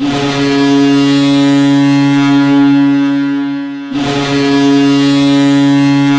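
Boston Bruins arena goal horn sounding the signal for a goal scored: two long, steady, deep blasts. The first lasts about four seconds, and the second follows almost at once after a short break.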